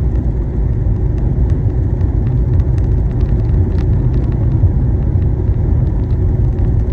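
Car driving on the highway, heard from inside the cabin: a steady low rumble of tyre and engine noise.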